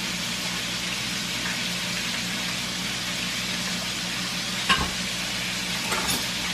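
Steady hiss over a low electrical-sounding hum, with two light clicks about three-quarters of the way through, as sauce is spooned onto a fried chicken sandwich.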